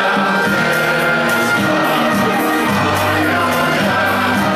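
A large group of waiters singing a song together, holding long notes.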